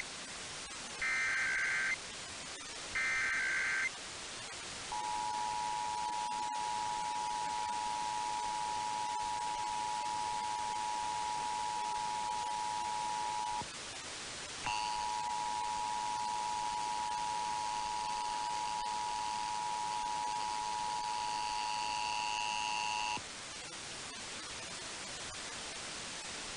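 Emergency Alert System activation opening a Required Monthly Test. The last two of the three SAME header data bursts, each about a second long, are followed by the two-tone EAS attention signal, which sounds steadily for about nine seconds, breaks off for a second, and sounds again for about eight seconds with higher tones added. A steady radio static hiss fills the last few seconds.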